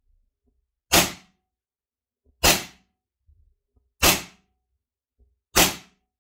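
ICS XFG gas blowback airsoft pistol fired four single shots, evenly spaced about a second and a half apart, each a sharp crack that dies away quickly.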